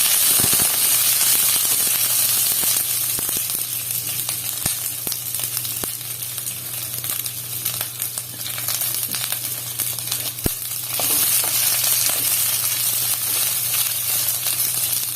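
Garlic and sliced red chilli peppers sizzling as they fry in hot sesame oil in a kadai, with a few sharp clicks. The sizzle eases a little in the middle and grows louder again about eleven seconds in.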